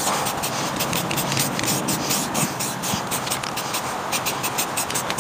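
Aerosol spray can of primer being shaken hard, its mixing ball rattling in quick, uneven clicks about six times a second.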